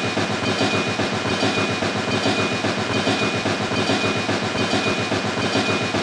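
Train running along its track with a fast, even clickety-clack clatter.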